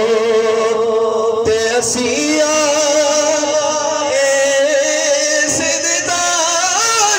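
A man's voice singing a Punjabi naat (devotional song praising the Prophet) into a microphone, holding long drawn-out notes with a brief break for breath and a step up in pitch about two seconds in.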